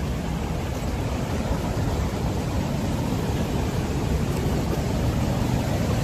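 Steady rushing of a large waterfall, an even noise weighted low with no breaks.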